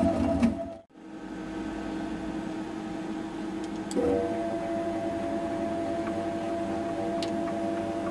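Home-built CNC router running with a steady mechanical whine and hum. It cuts out abruptly just under a second in, resumes, and shifts to a louder, slightly different tone about four seconds in.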